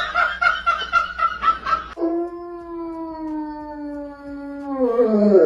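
A dog gives a quick run of short yelps, about four a second, then one long howl that slowly falls in pitch and drops off at the end.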